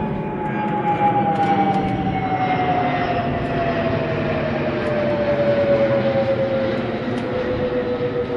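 Royal Australian Air Force KC-30A tanker (Airbus A330 MRTT) passing overhead on its twin turbofan engines: a steady jet rumble with a strong whine that falls smoothly in pitch as the aircraft goes by and draws away.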